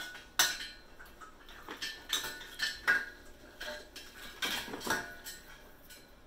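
A mains power cord being handled and pulled up, its plastic IEC plug and cable clattering against the desk leg: a series of sharp knocks and rattles, the loudest about half a second in and again near three seconds.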